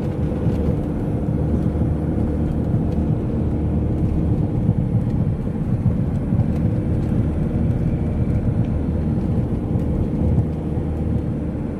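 2007 Kia Carnival's diesel engine running steadily with road noise as the van drives along a highway. Its automatic transmission will not shift up into fourth gear.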